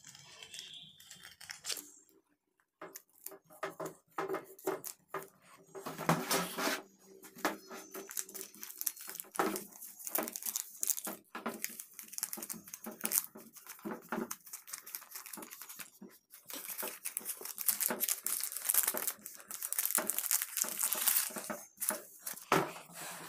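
Self-adhesive bat protection filament tape going onto a cricket bat: its backing sheet crinkles and crackles as it is peeled and handled, with scratchy rubbing as a cloth presses the tape down. It comes in irregular bursts with a couple of short pauses.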